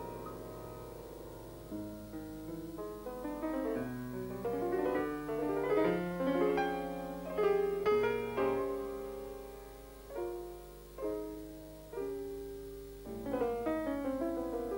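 Piano music: a flowing line of struck notes that ring and fade, thinning to a few single notes a little past the middle before filling out again.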